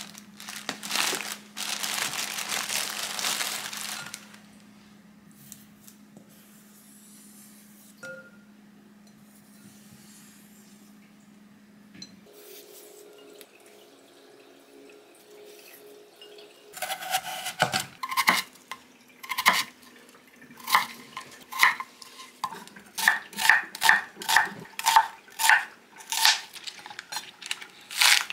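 Plastic packaging crinkling and rustling for the first few seconds, then, after a quiet stretch, a kitchen knife chopping green onion on a wooden cutting board, the knocks coming in a steady run of roughly two a second.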